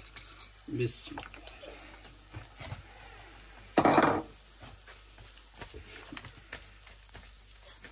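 Silicone spatula stirring thick apple halwa in a nonstick frying pan, with soft scrapes and taps against the pan. A short, louder rustling burst comes about four seconds in.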